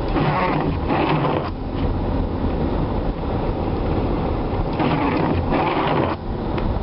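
Four-wheel-drive Ford's engine and road noise heard from inside the cab while driving through snow, a steady low rumble with two louder rushing swells, one at the start and one about five seconds in.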